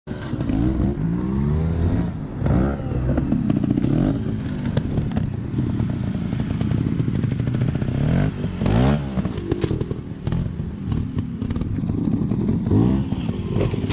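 Trials motorcycle engines idling and blipped in short, sharp revs several times, with clattering knocks of the bikes on rock and dirt.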